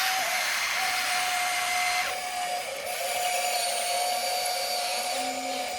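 Small electric motors and gear drives of a Huina remote-control excavator toy whining steadily as it works, with a higher part of the whine dropping away about two seconds in.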